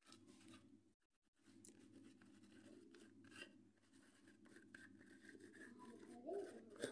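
Chalk writing on a blackboard: faint, scattered scratching strokes.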